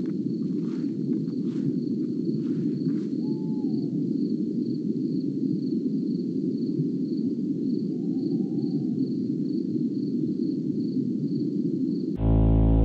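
Nature ambience: an insect chirping steadily, about twice a second, over a low, steady rushing noise, with a few faint clicks in the first few seconds and two short calls in the middle. Music with a low drone cuts in suddenly near the end.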